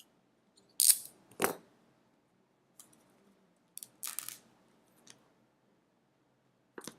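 Product packaging being opened and handled: a few short crackles and rustles of box and wrapping, with a dull knock about one and a half seconds in.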